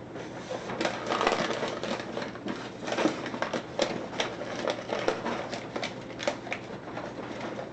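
Paper tray of a Lexmark T642 laser printer being pulled out, with a run of plastic clicks and rattles and the crackle of crumpled paper jammed in the feed.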